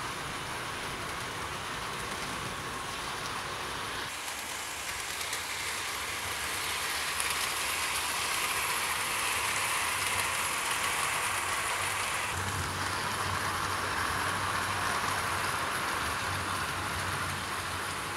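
OO gauge model steam locomotive and coaches running on track: a steady rolling rattle of small wheels on rail with the motor's whir, growing louder toward the middle and then easing. The tone changes abruptly twice, about four and about twelve seconds in.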